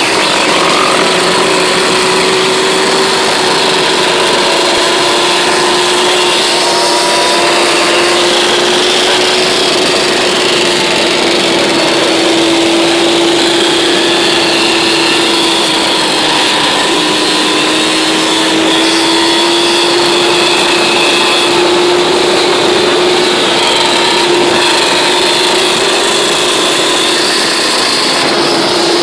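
ATV quad engine running steadily at cruising speed, a high engine drone whose pitch drifts slightly up and down.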